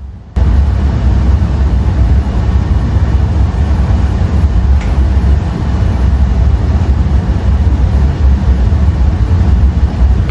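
Loud, steady low rumble of rushing air buffeting the microphone, starting abruptly about half a second in.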